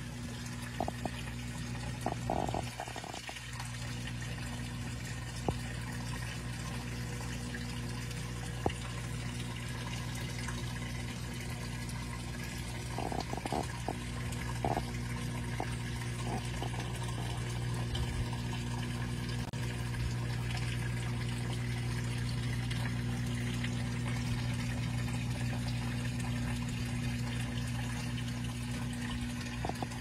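Water trickling and splashing in a paludarium's pumped waterfall, over a steady low hum, with a few short brighter plinks a couple of seconds in and again about halfway.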